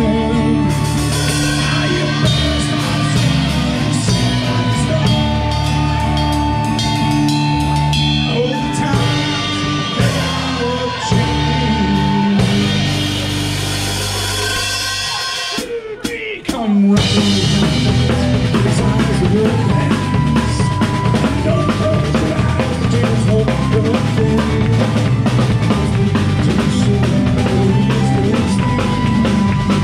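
Live band playing: drum kit, electric guitars and bass. The music breaks off for about a second just past halfway, then the band plays on with full drums.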